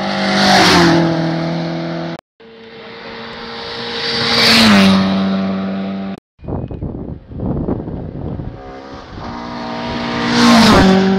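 Rally cars, among them a Mk2 Ford Escort, passing at full speed one after another, three passes in all. Each engine note swells as the car approaches and drops sharply in pitch as it goes by: near the start, just before halfway, and near the end.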